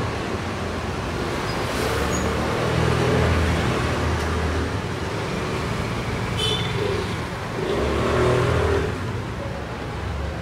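Street traffic: engines of motorbikes and cars running and passing, their hum swelling and fading several times.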